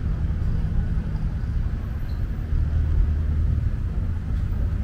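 Steady low rumble of road traffic, with a vehicle engine running close by.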